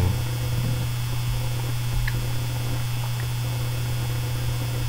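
Steady electrical mains hum in the recording, with a faint click about two seconds in.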